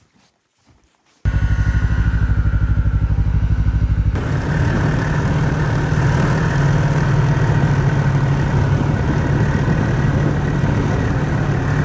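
After about a second of near silence, a loud engine starts with a rapid, even pulse. About four seconds in it gives way to a snowmobile engine running steadily while riding along a packed snow trail.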